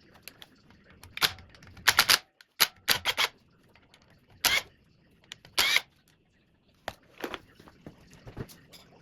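Irregular sharp metallic clicks and clanks of hand tools and parts being handled on a small Kohler Command CV16 engine under disassembly. There are about a dozen over several seconds, some in quick runs of two or three.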